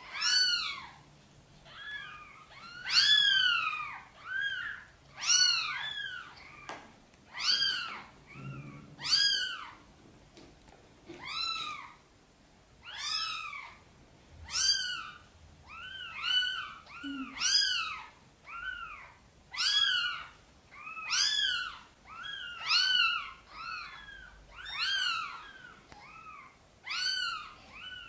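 Newborn kittens crying: a steady run of short, high-pitched mews, each rising and falling, about one a second, with two voices sometimes overlapping. These are the isolation calls of tiny kittens away from the nest.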